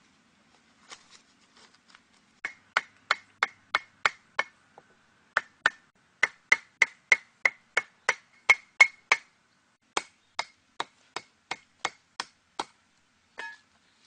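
Rapid chopping blows on wood, about three a second, coming in runs with short pauses between them, each blow giving a short ringing crack.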